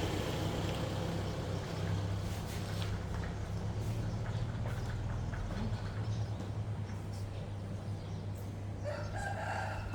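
Low, steady engine hum of an idling vehicle, with faint clicks scattered through it; a voice comes in briefly near the end.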